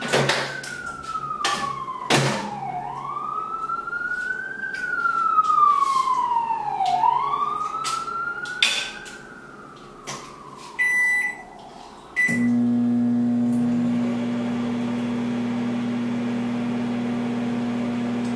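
An emergency-vehicle siren wails, rising and falling about every two seconds, over several sharp knocks and clatter. About eleven seconds in, a microwave oven's keypad beeps a few times, then the microwave starts and hums steadily.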